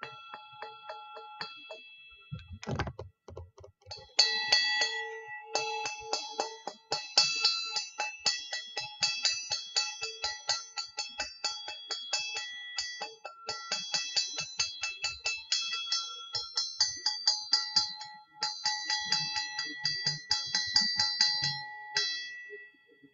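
Small brass singing bowl ringing, then struck rapidly with a striker, several taps a second, its tones ringing on under the taps. A dull bump comes about three seconds in, and the tapping pauses briefly near the end.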